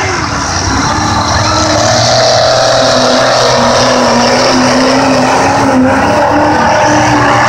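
Lifted mud truck's engine running loud and steady as it drives through a deep mud hole, its note climbing slightly about two seconds in.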